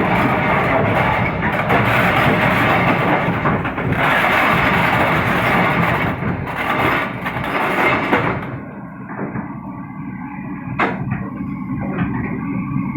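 Heavy diesel machinery engine running loud and steady. About eight seconds in it drops to a quieter, duller sound. There is one sharp knock near the eleven-second mark.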